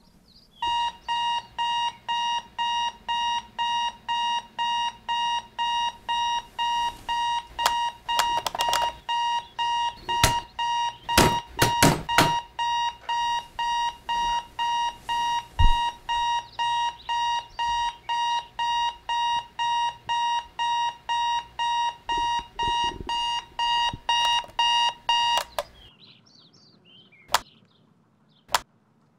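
Electronic alarm clock beeping steadily, about two beeps a second, with a few knocks partway through. The beeping cuts off suddenly near the end, followed by two short clicks.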